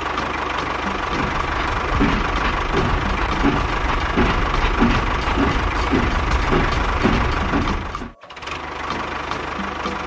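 Toy train running along plastic track: a steady motor hum with a regular clack roughly every half second or so, coming a little faster over a few seconds. The sound drops out abruptly about eight seconds in, then the steady hum resumes.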